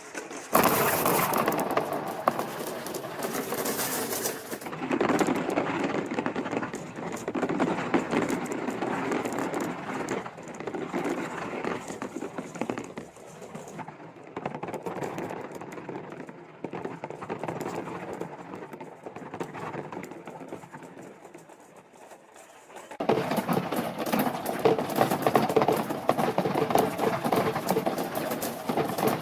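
Marbles rolling and clattering down a plastic marble-run track: a steady rattle of many small clicks. It starts suddenly, thins out and grows quieter past the middle, then picks up loudly again near the end.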